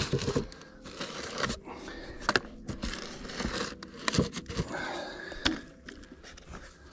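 Plastic handling noise: irregular crinkling and rustling with scattered clicks and knocks as a plastic water bottle is handled.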